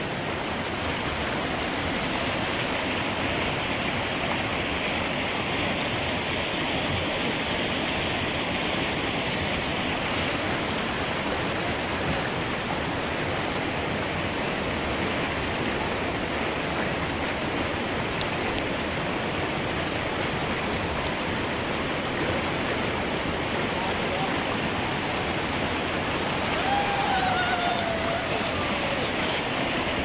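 River whitewater rapids rushing, a steady, unbroken noise of churning water.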